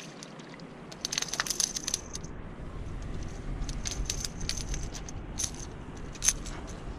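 Small metallic clicks and jingles of fishing tackle as a hooked baby flounder on the line is lifted and dragged up onto granite dike rocks. There is a cluster of clicks about a second in, more through the second half, and one sharper tap near the end.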